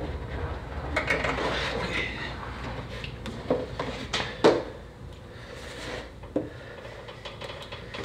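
Scattered clicks, taps and rustling of parts being handled on a car's trunk lid during a switch removal, with a few sharper knocks about three and a half to four and a half seconds in and another one past six seconds.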